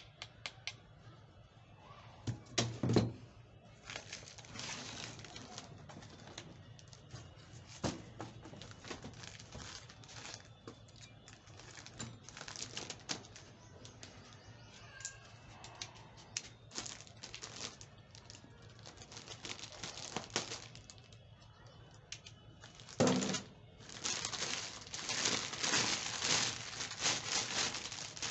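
Packaging being handled: cardboard and plastic rustling and crackling, with a knock about three seconds in and another near 23 seconds as items are set down. From about 24 seconds on, the plastic wrap around the pressure washer crinkles steadily as it is pulled off.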